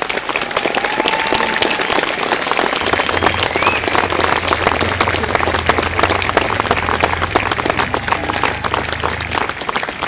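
Crowd applauding at the end of a fireworks display, dense clapping that swells up at the start and holds steady.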